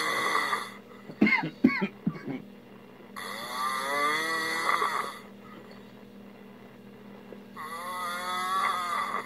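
A man snoring in his sleep: a few short snorts about a second in, then two long snores about four seconds apart, each lasting about two seconds.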